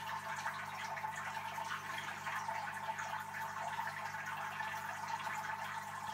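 Aquarium water circulating: a steady trickle with faint drips over an even low hum.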